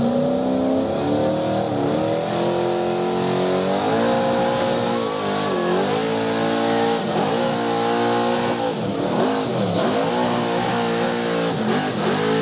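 The engine of a 1965 Chevy mega truck running hard at high revs under full load while pulling a sled. The pitch climbs slowly at first, then from about five seconds in it dips sharply and recovers several times.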